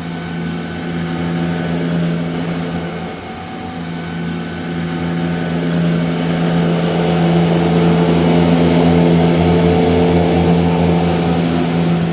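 An engine running at a steady speed, with a slight dip in level about three seconds in.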